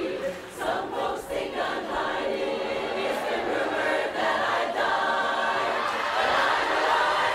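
Large mixed chorus of men's and women's voices singing together in a Texas song medley.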